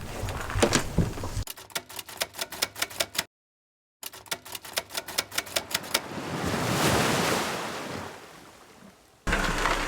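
Rapid, evenly spaced clicking like typewriter keys, broken by a moment of dead silence from an edit, then a swelling whoosh that peaks and fades away.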